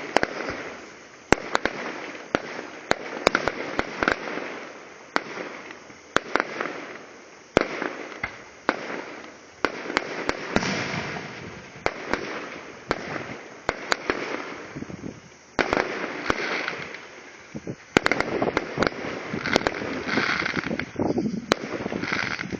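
Fireworks going off: a rapid string of sharp bangs, several a second at times, over continuous crackling and hissing from the bursting shells.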